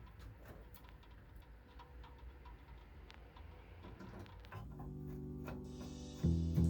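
Faint scattered clicks and taps, then background music fades in about four and a half seconds in, its held chords getting louder, with a strong chord near the end.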